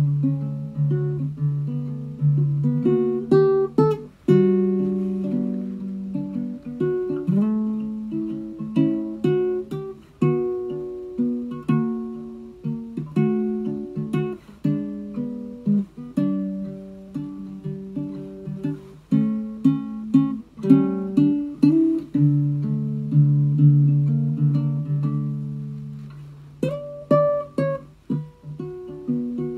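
Solo ukulele played with the fingers: plucked chords and melody notes, each note ringing and fading. A few higher notes come in near the end.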